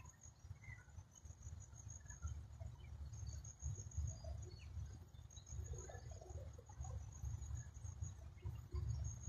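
Outdoor nature ambience: a high, thin trill that comes and goes, like an insect's, with scattered faint chirps and a steady low rumble underneath.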